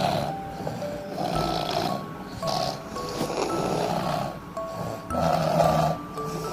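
Two sleeping people snoring together, a ragged snore about every second to second and a half. A simple background music melody plays under the snores.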